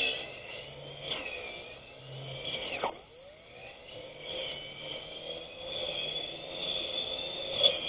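Electric grass cutter's motor whirring with a high whine whose pitch wavers as it cuts, with a sharp knock about three seconds in.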